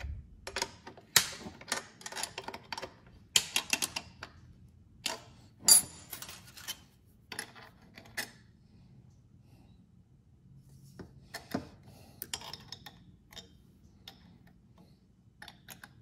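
Small metal clicks and clinks of lock nuts, washers and a wrench working on the steel bracket studs of a brake booster, in irregular clusters with a quieter pause past the middle.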